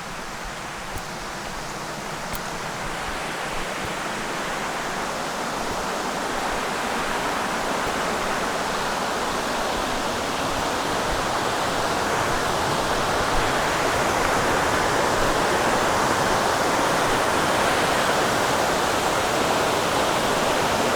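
Rushing water of a mountain creek pouring over rocks in falls and rapids, a steady hiss that grows louder over the first half and then holds steady.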